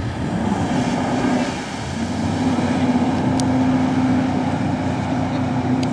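Motorboat engine running loudly and steadily, with a held hum under the rush of water and wind.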